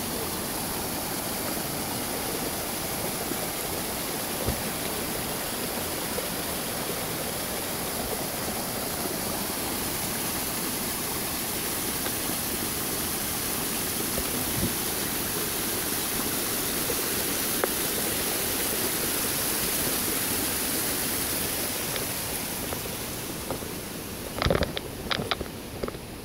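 Steady rushing of a mountain waterfall, easing slightly near the end, with a few sharp knocks just before the end.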